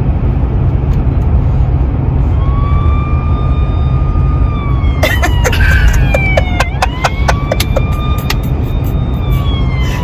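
Road rumble inside a moving car, with a siren wailing slowly up and down in pitch from about two seconds in. About halfway through, a run of sharp clicks starts, roughly three a second.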